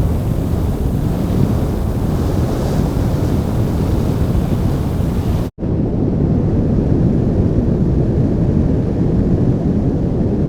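Flamethrower sound effect: a steady, continuous blast of burning fuel, played as two loops. It cuts out briefly about five and a half seconds in and resumes with less hiss.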